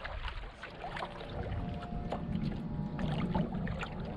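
Small waves lapping and splashing against the hull of a wooden sailing kayak under way, with irregular slaps over a steady low rumble of water and wind.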